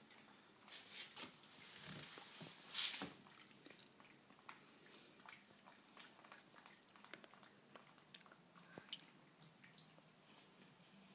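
A young macaque biting and chewing a piece of corn on the cob: faint, irregular crunching and wet clicks of bites, with one louder sharp sound about three seconds in.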